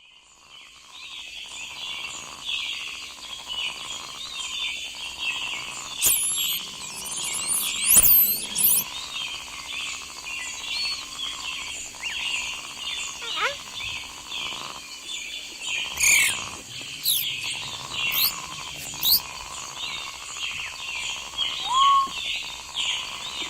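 Jungle ambience: a dense chorus of birds chirping and calling over a steady high hum, fading in over the first couple of seconds. Louder sweeping whistled calls stand out about six and eight seconds in and again several times later on.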